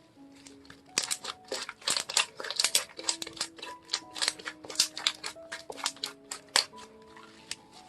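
Slime being handled, giving a rapid, irregular run of crisp clicks and pops from about a second in until near the end.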